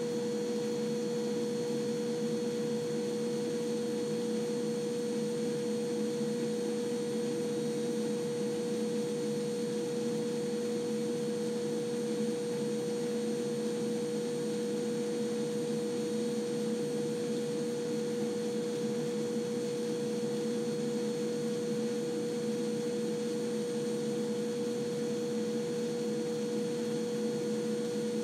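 Upright vacuum cleaner running steadily: a constant motor whine with one strong steady tone over a low rushing noise, picked up at about four feet by a microphone with no booth around it.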